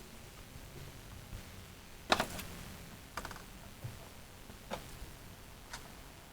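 A few short, sharp clicks and knocks, as of something handled or set down: a loud cluster about two seconds in, then three lighter ones about a second apart.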